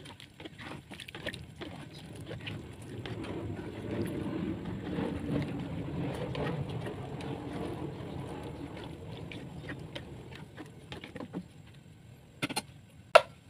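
A spatula stirring chicken, tofu and vegetables through coconut-milk broth in a nonstick wok: liquid sloshing with light scrapes and taps, strongest in the middle. A few sharp knocks near the end.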